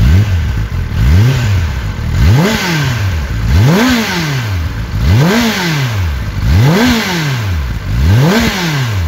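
Kawasaki ZX-10R's inline four-cylinder engine on its stock exhaust, warm, being blipped repeatedly from idle: about seven quick revs, roughly one every second and a half, each rising and dropping straight back. The first two are lower, and later ones reach over 6000 rpm.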